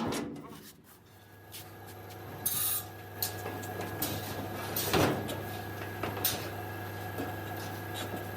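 Workshop noise: a steady low machine hum with scattered knocks and clicks, a loud knock at the start and another about five seconds in, and a short hiss about two and a half seconds in.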